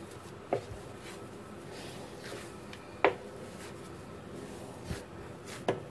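Hands kneading fresh chhena (homemade paneer) with flour on a plate, with about four short knocks as the dough is pressed down, over a faint steady hum.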